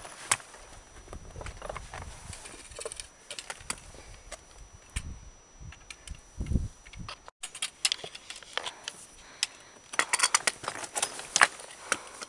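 Footsteps on rock and trekking-pole tips clicking and scraping against granite boulders during a scramble, irregular clicks that come thickest near the end. A few low thumps fall in the middle.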